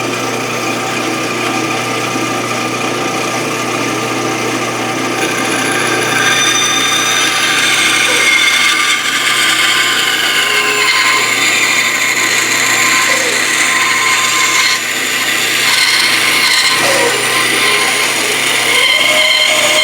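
Bandsaw running steadily, its blade cutting the side profile out of a wooden dragster blank. Over the constant motor hum, the pitch of the cutting whine shifts as the wood is fed through.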